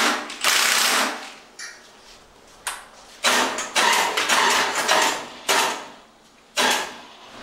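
Cordless impact wrench hammering on the harmonic balancer bolt of a small-block Chevy V8, in a series of short bursts with brief pauses between.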